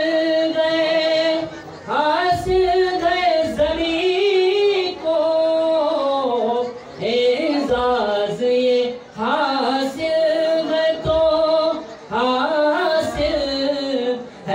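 A man singing a naat, an Urdu devotional poem, through a microphone, in long held and ornamented phrases with short breaks between them.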